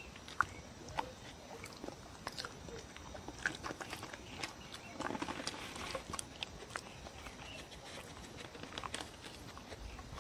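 A dog chewing and licking up a piece of soft, moist cake close to the microphone: a run of small wet clicks and smacks, busiest around the middle.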